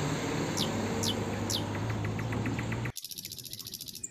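Street ambience with a truck engine's steady low hum and three short, falling bird-like chirps. About three seconds in, it cuts abruptly to quieter outdoor sound with a rapid, high-pitched insect trill.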